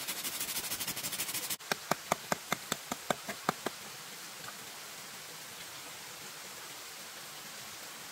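A quick rapid high-pitched rasping that cuts off abruptly, then about ten sharp knocks at roughly five a second, like chopping or hammering, over a steady hiss.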